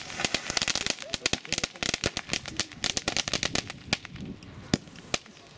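Firework crackers going off in a rapid crackling run of sharp bangs that thins out after about four seconds, ending in a few last separate cracks.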